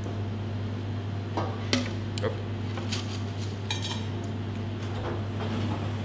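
Scattered light clinks and taps against a stainless steel bowl as frozen, coated tomato spheres are handled and lifted out of it, with a quick rattle of knocks near the middle. A steady low hum runs underneath.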